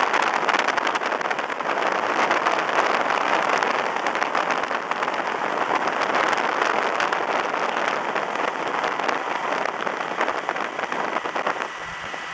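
Wind rush and tyre roar from a car travelling at motorway speed, heard through an open window, with the wind crackling and buffeting on the microphone. It eases off about a second before the end.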